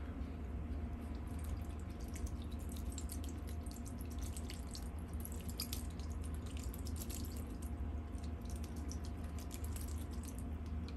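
Water poured from a plastic watering can, splashing off a hand onto loose potting mix in a plastic pot. It is an irregular patter of small splashes and drips that starts about a second in.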